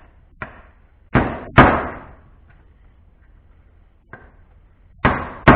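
Hammer blows driving a new 6001-2RS ball bearing into a palm sander's housing: sharp knocks with a short ringing decay, a light tap near the start, two hard strikes just after a second in, then a run of three strikes near the end.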